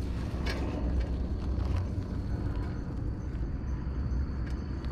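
Handling and rustling noise from picking through dry leaf litter by hand, with scattered small clicks and crackles, over a steady low rumble on the microphone. A constant high-pitched insect drone runs behind it.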